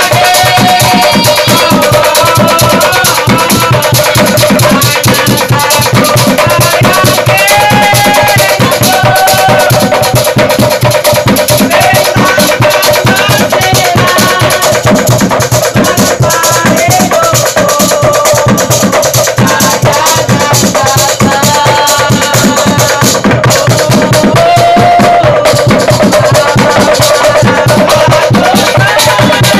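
Loud group singing and chanting by young men over a fast, steady beat of a hand drum and rattling percussion: obrog street music played to wake people for the pre-dawn sahur meal.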